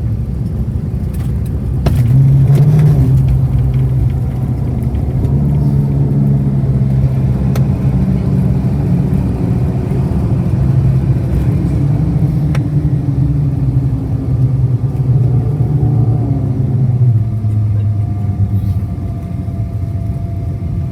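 An engine running steadily with a low hum; its pitch drops a little near the end.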